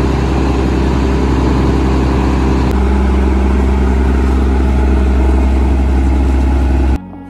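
Claas Mega 208 combine harvester's diesel engine running steadily with a deep drone. Its tone shifts slightly about three seconds in, and the sound cuts off abruptly near the end.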